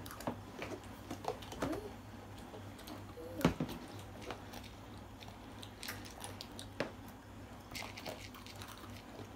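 Small plastic toy cups and bowls from a Tupperware Mini set clicking and knocking lightly on a table as they are handled, with one louder knock about three and a half seconds in. A low steady hum runs underneath.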